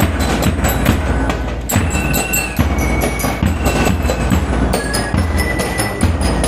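A drum and lyre band playing: rapid snare and bass drum strokes under ringing notes from bell lyres.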